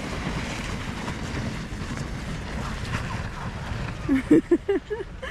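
Steady rushing noise of a small board sliding down snow, with wind on the microphone. About four seconds in come several short, loud shouts.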